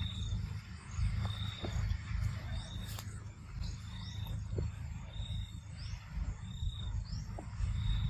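Forest ambience: a short, even high-pitched call repeating about once a second, with a few faint rising chirps above it, over a steady low rumble.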